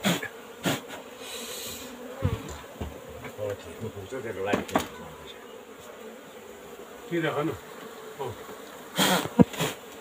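Steady buzzing of a disturbed colony of Indian hill honey bees (Apis cerana indica) as their comb is pulled from a wall cavity, with a few sharp knocks and scrapes from the comb and wall being handled.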